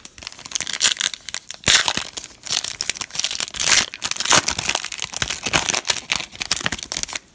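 Foil wrapper of a trading card pack being torn open and crumpled by hand: a dense crinkling and crackling, loudest about two seconds in.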